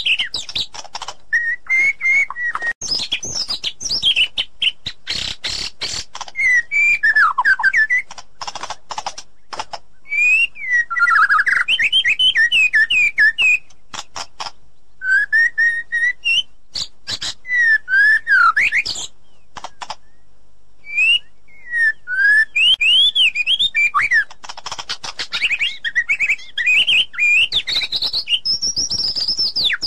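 White-rumped shama singing: varied whistled phrases that slide up and down, mixed with fast rattling, clicking notes, with a short pause partway through.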